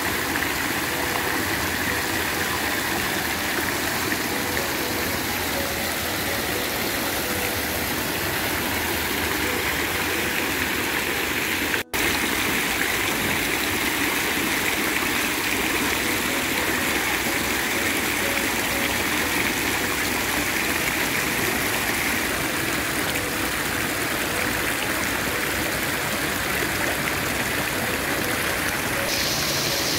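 Water of an ornamental park fountain splashing steadily: jets and streams pouring from the tiers and falling into the basin. It breaks off for an instant about twelve seconds in.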